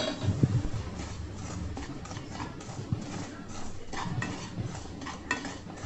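Spatula stirring and scraping semolina around a nonstick pan of ghee in irregular strokes with light knocks against the pan, as the rava is roasted.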